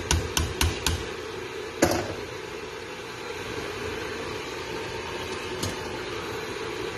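A few quick, evenly spaced light knocks as a bowl of rice is tipped and tapped against a pot, ending about a second in, then one louder knock. After that, only a steady hiss.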